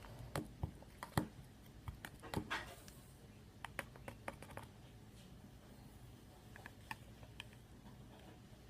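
Spoon poking and stirring slime in a cup: faint, irregular clicks and small sticky squelches, busiest in the first three seconds and sparser after.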